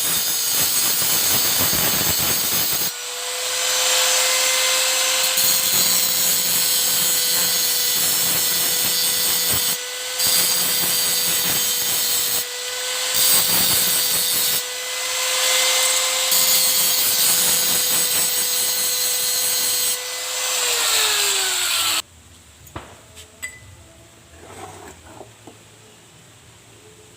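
A high-speed motorised tool running at a steady pitch under load, with a few brief dips. About 20 s in it winds down with a falling pitch and stops, followed by a few light clicks of handling.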